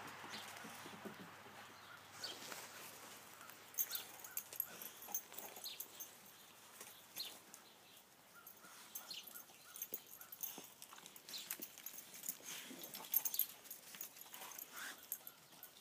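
Dogs making faint, scattered short sounds and clicks.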